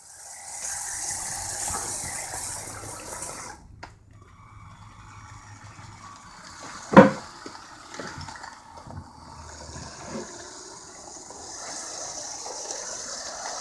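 Custom LEGO model train with two 9V motors running along its track, a hissing rush of motors and wheels that drops away about 3.5 seconds in and comes back near the end. A single sharp knock about 7 seconds in.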